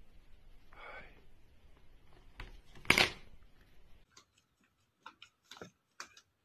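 Plastic basket lid being handled over a cat, with a loud sharp clatter about three seconds in; then a few faint, scattered taps.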